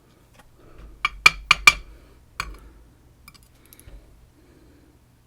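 Light metallic clinks of small lock parts and tools as a pin-tumbler lock core is taken apart: four quick clinks about a second in, then one more.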